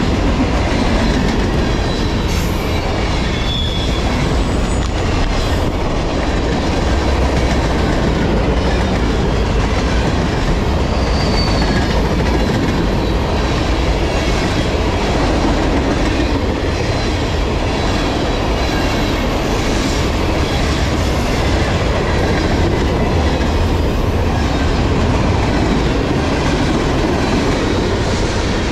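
Freight cars of a CSX train, tank cars among them, rolling past close by at speed: a steady rumble of steel wheels on rail with a dense clickety-clack and a few brief high wheel squeals.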